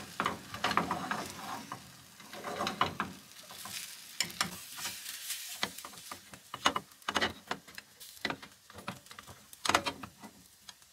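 Chopsticks clicking and scraping against a rectangular tamagoyaki pan as beaten egg is stirred and spread in it, over a light sizzle of the egg setting in the hot pan. The clicks come irregularly, a few at a time.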